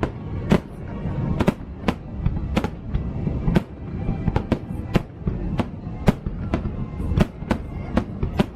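Aerial firework shells bursting in quick succession, sharp bangs about twice a second over a continuous low rumble of overlapping explosions.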